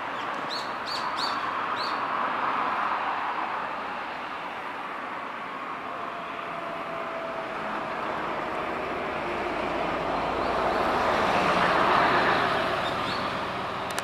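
Steady rush of passing vehicles that swells and fades, loudest near the end, with four short, high bird chirps in quick succession about half a second to two seconds in.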